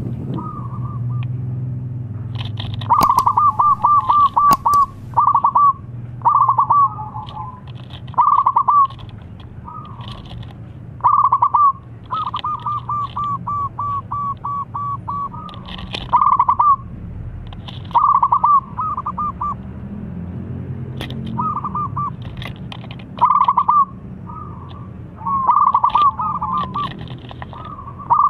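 Zebra dove (perkutut) cooing: about a dozen loud phrases of quick, clipped coos, repeated every second or two, some drawn out into long runs of notes, over a steady low hum.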